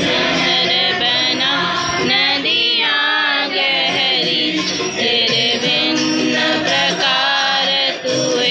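A prayer song being sung to a steady musical accompaniment, the melody wavering and gliding in pitch.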